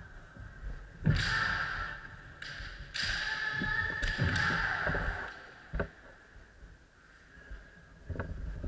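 Kendo bout: sharp knocks of foot stamps and bamboo shinai strikes on a wooden floor, each followed by a fighter's held kiai shout, one about a second in and a longer one about three seconds in. Another single sharp knock near the six-second mark.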